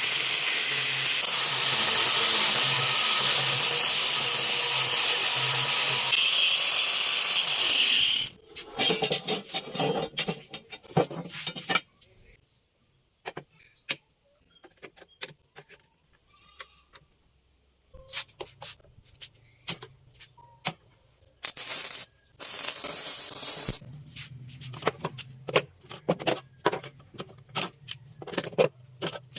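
Angle grinder running and cutting steel for about eight seconds, then stopping; afterwards metal parts knock and clink as they are handled, with another short burst of grinding a little past twenty seconds in.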